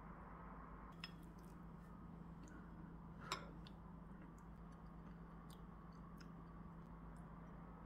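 Near silence over a faint steady hum, with a few light clicks of a ladle and spoon against dishes, the sharpest about three seconds in.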